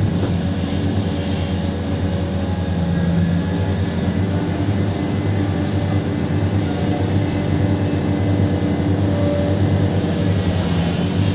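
Diesel engine of a large Hitachi 870 excavator running steadily under work, a low, even drone.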